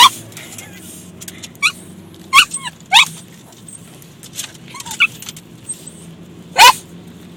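A dog barks and yelps in short, high-pitched yips, about six of them, the loudest near the end. A steady low hum from the car runs underneath.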